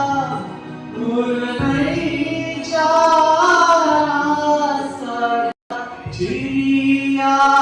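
Singing with long held, gliding melodic notes in a stage performance's music; the sound cuts out completely for a moment about five and a half seconds in.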